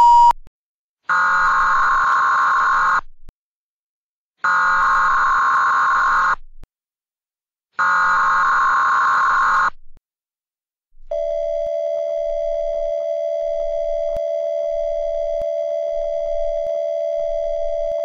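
Emergency Alert System tones: three harsh, buzzy bursts of SAME header data, each about two seconds long with short gaps between them, then a steady single attention tone held for about seven seconds. A short beep cuts off right at the start.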